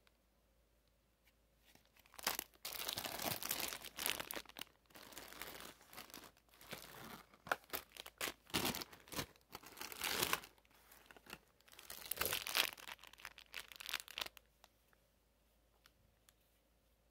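Crinkly plastic candy wrappers rustling in irregular bursts as packaged sweets are picked up and handled, stopping a couple of seconds before the end.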